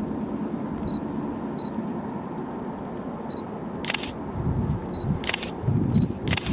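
Single-lens reflex camera shutter firing three times, about a second apart, in the second half, with faint short high beeps, one shortly before each shot, over a low background rumble.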